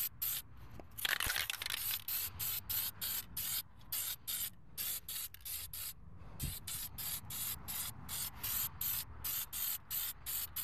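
Aerosol can of hammered-finish spray paint sprayed in quick short bursts, about three a second, with one longer spray about a second in.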